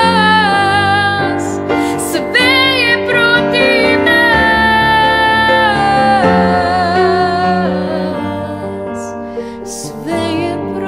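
A female voice singing long held, wordless-sounding notes over a piano accompaniment, the melody moving to a new note every couple of seconds.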